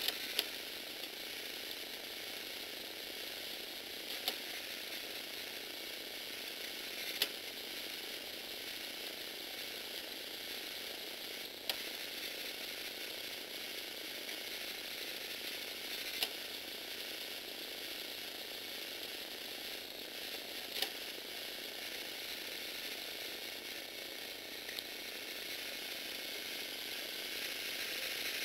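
Lego Technic plastic gearbox running under motor drive, with its gears giving a steady whirring rattle. A sharp click comes every four seconds or so.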